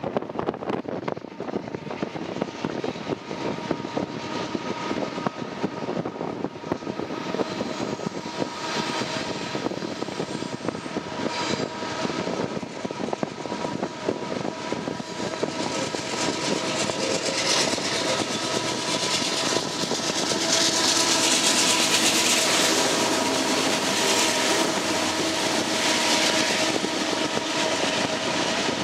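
Union Pacific diesel locomotive leading an autorack freight train as it approaches and passes. The engine drone and the rolling noise build to their loudest about three-quarters of the way through, then the autorack cars keep rolling by, with a steady high whine.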